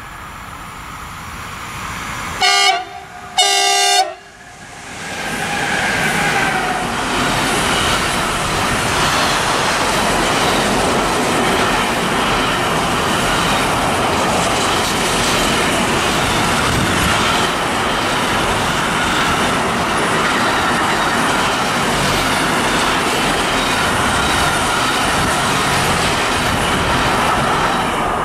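Electric freight locomotive's horn sounding two short blasts, then a long container train passing at speed: a steady roar of wheels on rail with clickety-clack from the wagons rolling over the track.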